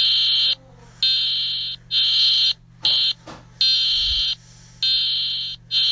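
Emergency alert alarm tone: a loud, high-pitched beep repeating about once a second, each beep lasting under a second.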